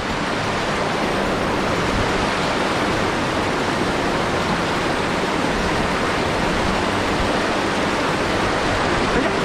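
Mountain stream water rushing over rocks and small cascades: a steady, even rush of water.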